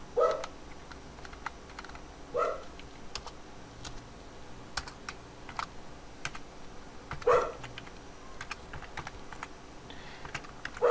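Computer keyboard typing in quick, light keystrokes as a line of code is entered. Four short, loud pitched calls, the loudest sounds here, break in about two, seven and eleven seconds apart.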